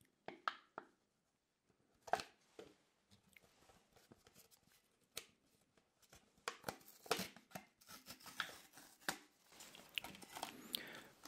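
A tube-shaped Lay's chip canister being handled and opened close to the microphone: scattered sharp clicks, scrapes and short tearing sounds, busier in the second half.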